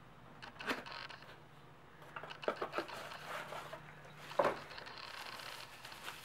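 Handling noise of small hard headlight parts, a mini H1 projector among them, being picked up and moved: scattered light clicks and knocks with scraping in between, the loudest knock about four and a half seconds in.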